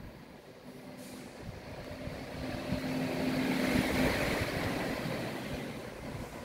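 A vehicle passing by: its noise swells to a peak about four seconds in and then fades, with a steady low hum that stops at about the peak.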